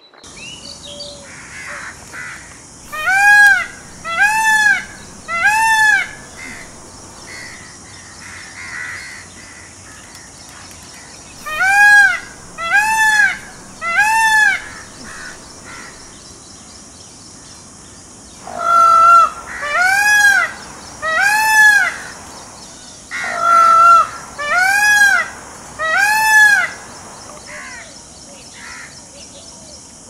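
Indian peacock calling: loud, arched honks in bursts of three, four bursts with pauses between. The later bursts open with a flatter, lower note.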